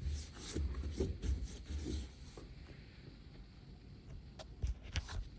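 Hand work on a car dashboard: irregular rubbing and scraping strokes for about two seconds, then quieter, with a few light clicks near the end.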